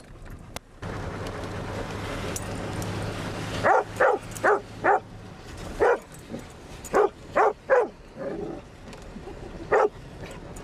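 Dog barking in short clusters, about nine sharp barks in all, at water splashing up around the vehicle. Before the barks, a sudden rush of spray as the tyres run through standing water, over the low hum of the engine.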